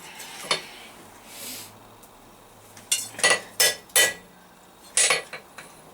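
Hammer striking a hot steel leaf on an anvil: about seven irregular, separate blows with a short metallic ring, most of them in the second half, as the leaf is touched up.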